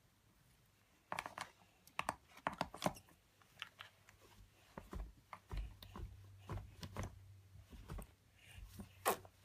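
GoldieBlox plastic pieces clicking and knocking irregularly as they are handled and pushed onto the pegs of a plastic pegboard, with one sharper click near the end.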